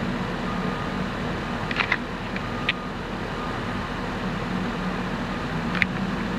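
Loaded diesel dump truck idling with a steady low rumble, amid city traffic noise. A few short sharp clanks come about two seconds in, and one more near the end.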